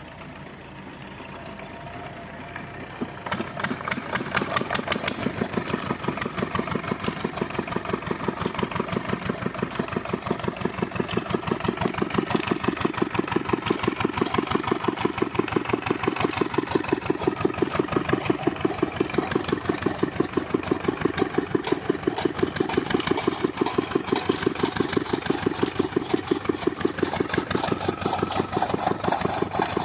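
An engine-driven chaff cutter running: the engine picks up about three seconds in and settles into a steady, fast, even beat.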